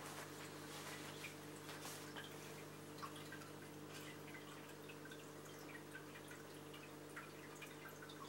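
Saltwater aquarium's circulating water: faint, irregular drips and small trickles over a low steady hum.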